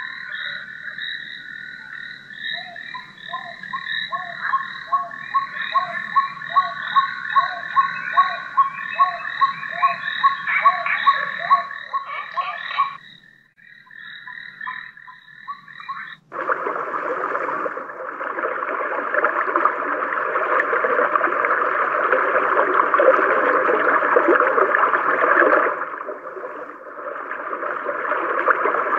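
The projector lamp's built-in nature sounds playing through its own small speaker. First a recording of frogs croaking in an even rhythm, a croak every half-second or so under a high steady trill, which cuts off about 13 seconds in. After a short near-silence, a steady rushing water-like noise starts suddenly about 16 seconds in and runs on, dipping briefly near the end.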